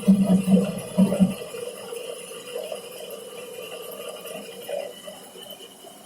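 Homemade metal lathe running: a loud low pulsing hum stops just over a second in, leaving a fainter whir with a thin high tone that slowly fades as it winds down.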